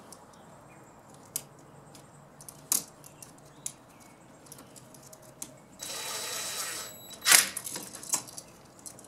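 Scattered small clicks and light metallic clatter as a toggle light switch and its copper wire are handled and the wire is fitted around a brass screw terminal. A brief rasp comes about six seconds in, then a sharp click.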